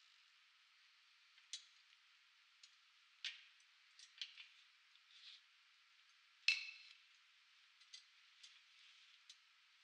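Faint light metallic clicks and clinks from handling the steel parts of a hydraulic strut spring compressor, scattered and irregular, the loudest about six and a half seconds in.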